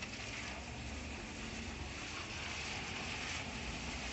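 Cars driving through a wet intersection, their tyres hissing on the rain-soaked road, the hiss swelling about halfway through as a car passes close.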